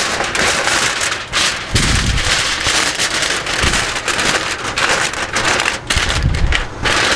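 Aluminium foil crinkling and crackling as it is handled and folded around a rack of beef short ribs, with a couple of dull low bumps.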